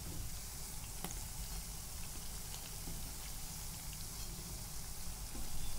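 Urad dal and arbi-leaf vadas deep-frying in hot oil in a kadhai: a steady, faint sizzle with a few small ticks.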